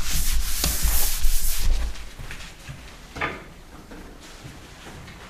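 Microphone being handled and rubbed: loud rubbing and bumping noise with a deep rumble for about the first two seconds, then a single short scrape a little after three seconds.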